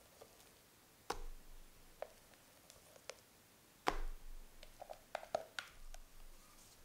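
Quiet taps and clicks of a spatula and silicone whisk against a glass mixing bowl as whipped egg-white meringue is scraped into chocolate cake batter. The taps come about a second apart, the loudest about four seconds in, followed by a quick run of small clicks.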